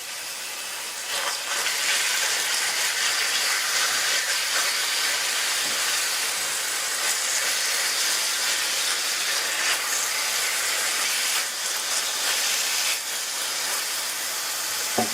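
Chicken pieces sizzling in hot olive oil in a skillet with onion and ginger: a steady hiss that comes up about a second in and eases slightly near the end.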